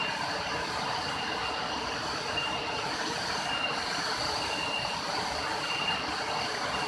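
Waterfall rushing steadily, a dense even roar of falling water. A short high chirp repeats about once a second over it.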